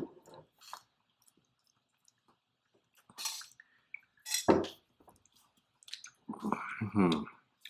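Wordless voice sounds from people feeling a Reaper-pepper hot sauce's burn: a sharp hiss of breath a little past three seconds in, a short hum or groan about a second later, and a longer one near the end. Faint small clicks come in between.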